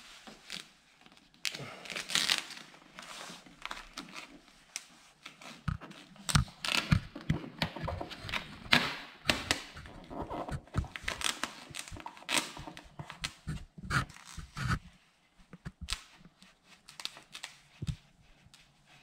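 Vinyl tint film crinkling and rustling as it is stretched over a car tail light and worked down with a plastic squeegee, in irregular scratchy strokes. The handling is busiest for most of the stretch and dies down to lighter touches near the end.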